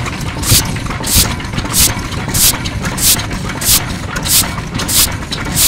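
Yanmar Type HC 10 hp single-cylinder diesel engine running, each exhaust stroke a breath-like puff from its silencer. There are about three puffs every two seconds, in an even rhythm over a steady low rumble.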